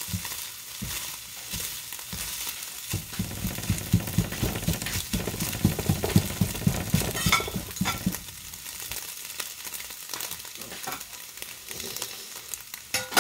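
Scrambled eggs sizzling in a stainless steel frying pan while a spatula pushes and breaks them up, scraping against the pan. The scraping is busiest from about three to eight seconds in.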